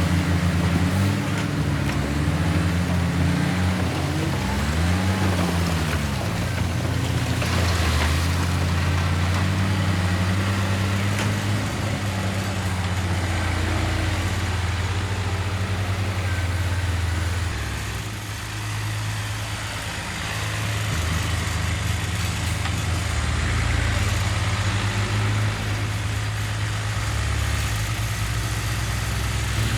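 Heavy diesel engines of a bulldozer and dump trucks at work. The engine note rises and falls several times in the first few seconds, then runs steadily, easing off briefly a little past the middle.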